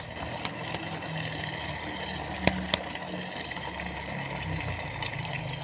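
Chilli sambal simmering in an electric multi-function pot, a steady low bubbling, with two sharp taps about two and a half seconds in as an egg is cracked against the pot.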